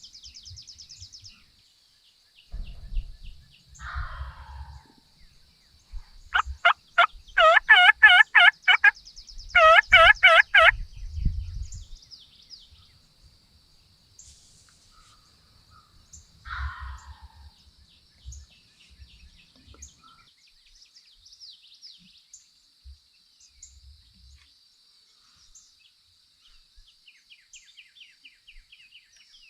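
Turkey calling: two loud runs of rapid, evenly repeated notes, one about six seconds in and a shorter one just after, with a couple of fainter single calls before and after. A faint steady high trill of birds or insects runs underneath.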